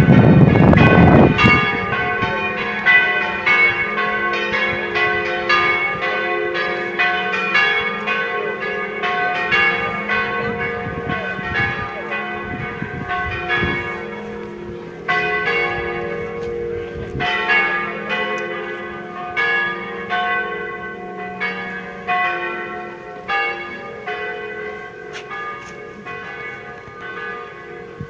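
Several church bells ringing together in a quick, busy peal, the strikes overlapping and each tone ringing on, slowly fading over the stretch. A low rumble covers the first second or two.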